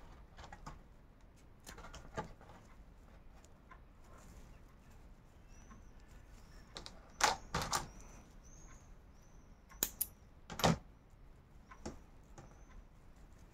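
Paper raffia yarn crackling and rustling in the hands as the yarn ends are tucked in with a crochet hook, with scattered sharp clicks, several loud ones in the middle. A faint run of short high chirps repeats through the middle.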